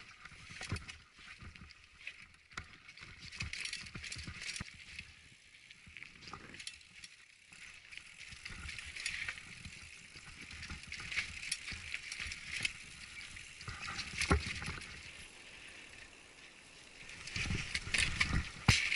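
Mountain bike riding down a rocky, gravelly trail: tyres crunching over stones, with frequent sharp knocks and rattles from the bike, louder and rougher over the last two seconds.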